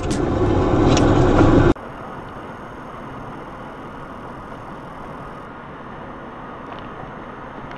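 A loud, dense rushing noise that cuts off abruptly about a second and a half in. After it comes the steady road and engine noise of a car driving, as picked up by a dashcam inside the cabin.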